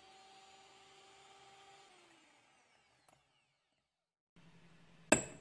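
Electric hand mixer with wire beaters whirring faintly in egg whites being whipped for meringue, then winding down and stopping about two seconds in. After a silent gap, a single sharp click near the end.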